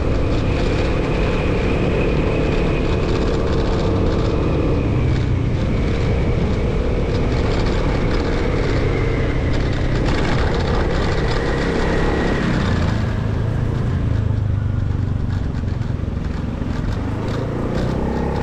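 Motorcycle engine running while riding: a steady drone with a high whine that dips in pitch a few times, over a constant rush of noise.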